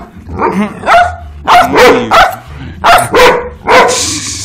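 Dogs barking loudly and repeatedly in quick bursts of short barks, reacting to unfamiliar new streaming icicle lights.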